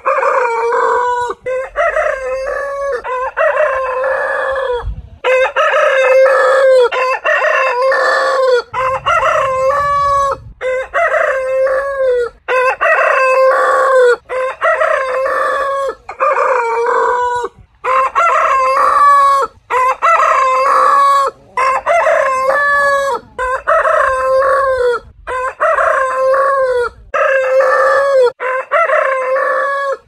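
Roosters crowing one after another, a rapid string of cock-a-doodle-doos, each a second or two long, with only brief breaks between them.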